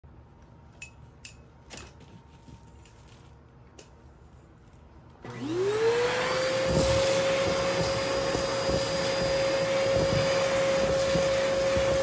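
Dyson DC14 upright vacuum cleaner switched on about five seconds in. Its motor spins up with a rising whine that levels off into a steady tone over a loud rush of air. Before that, only a few faint clicks.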